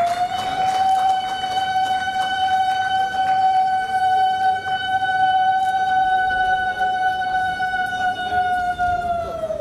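Conch shell (shankha) blown in one long, steady note lasting nearly ten seconds, its pitch sagging slightly as the breath gives out near the end. It is sounded to mark the ceremonial lamp lighting.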